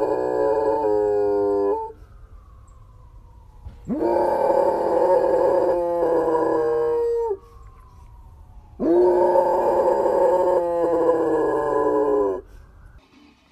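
German Shepherd howling three times in long drawn-out howls, each rising sharply at the start and then sagging slowly in pitch, the first already under way; it is howling in answer to the sirens of a fire station next door.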